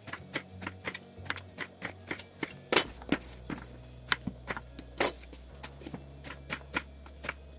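Kitchen knife slicing eggplant into rounds on a wooden end-grain cutting board: a steady run of knife taps on the wood, about three a second, with two louder knocks about three and five seconds in.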